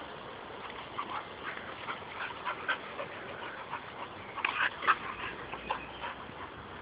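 Two pit bulls play-wrestling: a run of short, sharp dog noises and scuffles, starting about a second in and busiest and loudest about four and a half to five seconds in.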